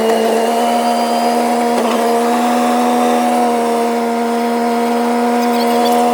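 Four-wheel-drive utility vehicle running at a steady speed, a loud, even machine whine that holds one pitch throughout.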